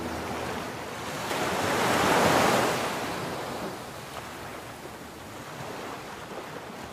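Sea surf washing up onto a sandy beach. The noise of the wave swells to its loudest about two seconds in, then slowly dies away.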